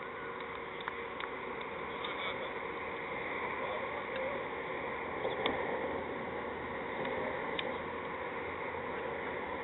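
Steady open-air background noise from a field microphone, with a few faint isolated clicks and a hint of distant voices.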